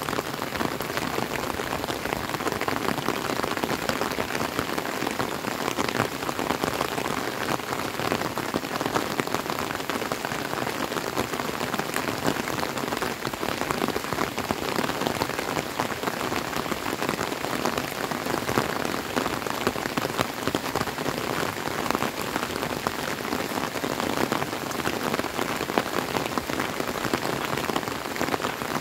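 Steady rain falling, a dense, even hiss of countless small drop hits that keeps on without letting up.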